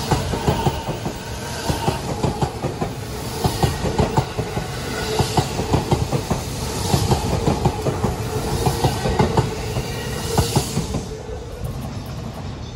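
Electric commuter train passing close by, its wheels clacking over the rail joints over a steady rumble and hum; the sound eases off near the end as the last car goes by.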